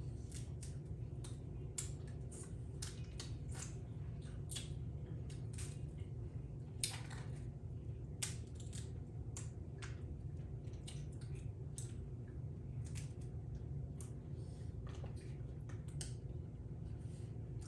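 Close-up eating of a seafood boil: an irregular run of sharp clicks and cracks from shells and wet mouth sounds, over a steady low hum.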